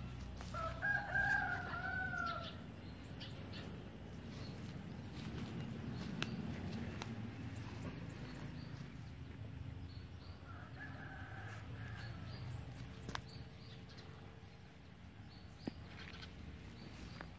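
A rooster crowing about a second in, then crowing again more faintly near the middle.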